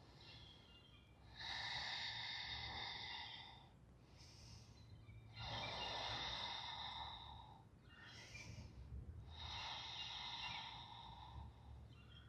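A person breathing slowly and audibly close to the microphone while holding a yoga forward fold: three long, airy breaths of about two seconds each, with fainter, shorter breaths between.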